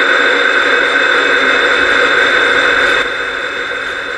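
Portal One ghost box output: a steady hiss of static with a constant high whine and a rough, fluttering layer beneath. It drops somewhat in level about three seconds in.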